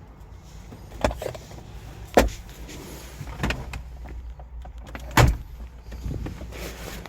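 Car doors on a 2013 Ford Escape being opened and shut: a series of clunks and thumps, the loudest about two and five seconds in.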